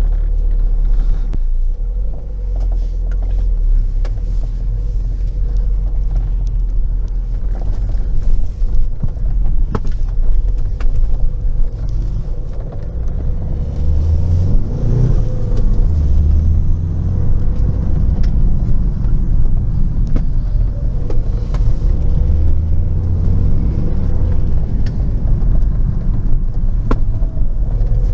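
Renault Megane II's 1.9 dCi four-cylinder turbodiesel car driving, a steady low rumble of engine and road noise. The engine is running again after its injection pump and timing belt were replaced.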